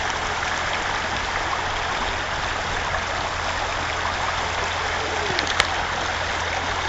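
Shallow river rushing over stones: a steady, unbroken rush of running water, with a single sharp click about five and a half seconds in.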